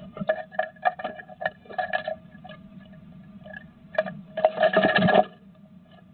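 Great tit moving about inside a wooden nest box: its claws scratch and tap on the wood and moss rustles as it works its nesting material. There is a run of short scratches and taps, then a louder scrabbling flurry about four and a half seconds in.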